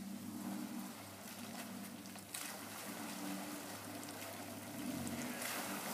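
Toyota Land Cruiser FZJ80's 4.5-litre inline-six engine running at low speed as the truck eases into a deep muddy water hole, with water sloshing around the tyres. The rush of water grows louder about two seconds in and again near the end.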